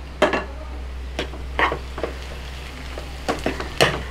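A white spatula stirring sliced onions with crushed ginger, garlic and green chillies in a non-stick wok: several quick scrapes against the pan over a faint sizzle of frying.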